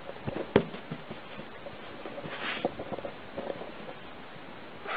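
Scattered soft taps and knocks with one sharp click under a second in, over a steady hiss, as a kitten hops and pounces sideways on carpet.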